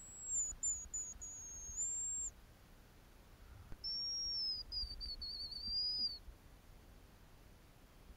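Two high, thin hazel grouse whistles, each about two seconds long. The first is higher and steps downward. The second is lower and breaks into a warbling trill near its end.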